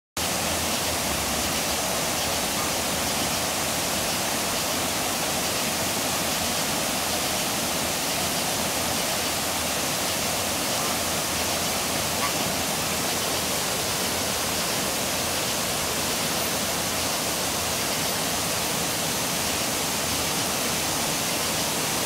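Waterfall rushing steadily: an even, unbroken roar of falling water.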